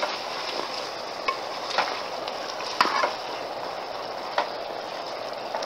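Beef sizzling in oil in an aluminium pot as the last of its cooking water boils off, stirred with a silicone spatula that scrapes and clicks against the pot a few times.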